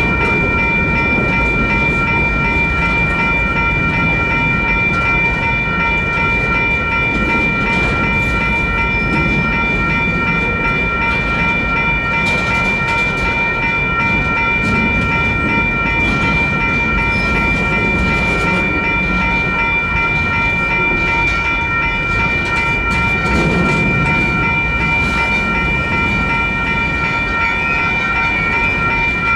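Two WCH electronic crossing bells ringing continuously with a fast, even repeating tone, over the steady noise of a Union Pacific freight train's wheels rolling through the crossing.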